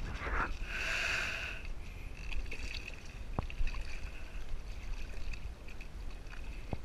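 Water sloshing and lapping against a boat hull as a hand holds a snook in the water alongside, with two sharp knocks, one about halfway through and one near the end.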